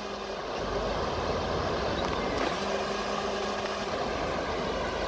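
Floodwater rushing steadily across a flooded road, with a faint low hum that comes in briefly at the start and again in the middle.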